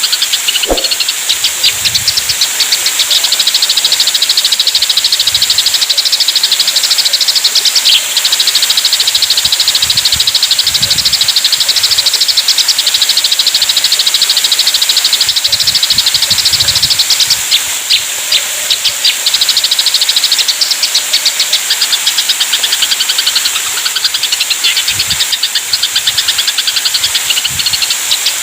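Eurasian tree sparrows giving an aggressive fighting chatter: a fast, unbroken stream of high chirps, over a steady high hiss.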